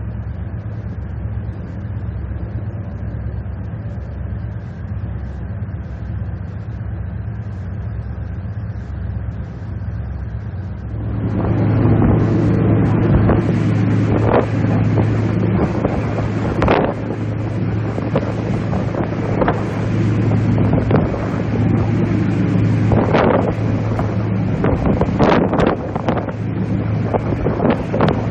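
A ferry's engine drones with a steady low hum, while wind buffets the microphone. About eleven seconds in, the wind noise grows much louder and gustier.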